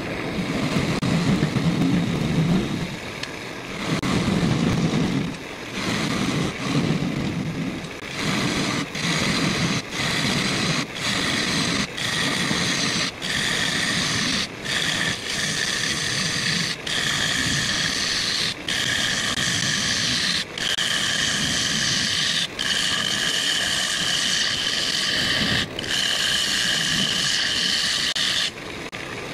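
A gouge cutting into spinning ash on a wood lathe, hollowing out a bowl: a continuous scraping hiss of shavings peeling off the wood. From about eight seconds in it breaks off briefly every second or two as the tool is drawn back between passes.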